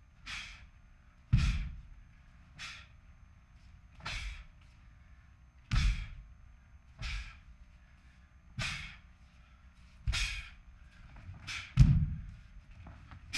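A Taekwon-Do practitioner working through a pattern: a sharp burst of sound with each strike and kick, about every second and a half. Several come with a heavy thud of a foot landing on the floor. The loudest is a quick double burst and thud near the end.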